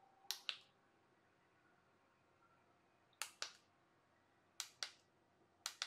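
Plastic buttons on the massage seat's handheld remote clicking in quick pairs, four times, against near silence.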